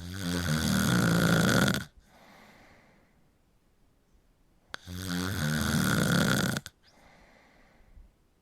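A person snoring: two loud snores, each about two seconds long and spaced about five seconds apart, each followed by a softer breath.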